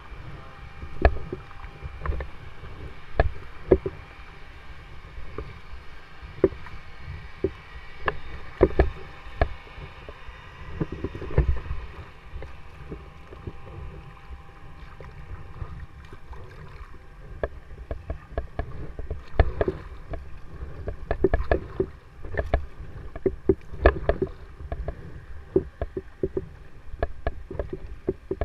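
Double-bladed paddle stroking through the water beside an inflatable kayak: uneven splashes with many sharp clicks and knocks, over a steady low rumble.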